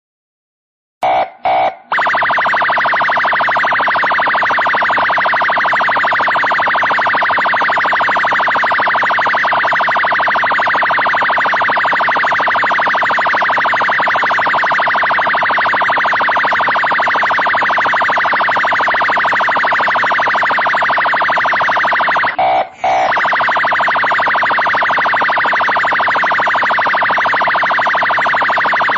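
Police pull-over ('abordagem') siren: two short chirps about a second in, then a continuous, fast-pulsing siren tone, which stutters briefly about 22 seconds in and resumes.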